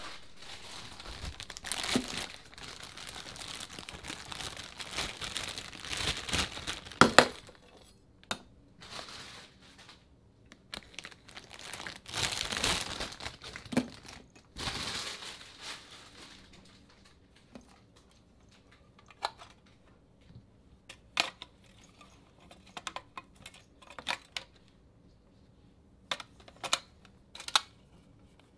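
Hands handling a battery-operated toy monkey and its base: a dense rustling for the first seven seconds or so, two more bursts of rustling later, then scattered light clicks and taps. The toy is not running.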